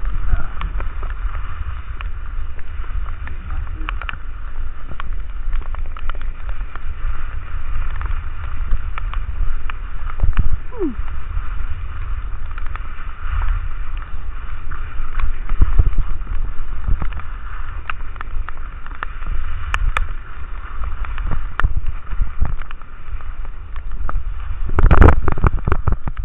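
Wind buffeting the camera microphone of a skier moving downhill, over the hiss and scrape of skis on wet, rain-soaked snow, with scattered clicks and knocks. A louder rumbling burst comes about a second before the end.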